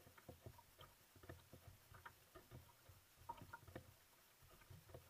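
Faint paddling: a single-blade canoe paddle dipping and pulling through calm water, with small irregular splashes, drips and light knocks against the hull.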